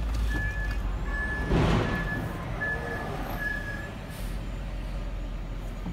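Heavy truck's reversing alarm beeping, five short beeps about one every three-quarters of a second, over a low engine rumble. A short, loud hiss comes about a second and a half in.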